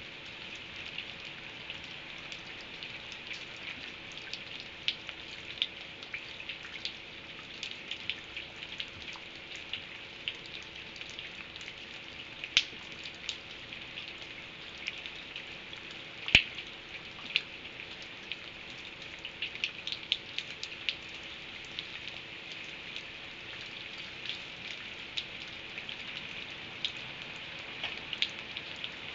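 Rain falling steadily, with many irregular drops ticking on a hard surface and one sharper tap about halfway through, over a faint steady hum.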